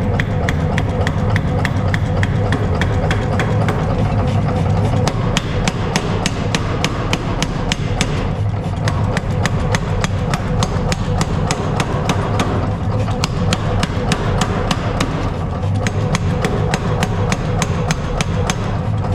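Hammer striking steel on an anvil in quick, even blows, about four a second, over a steady low hum.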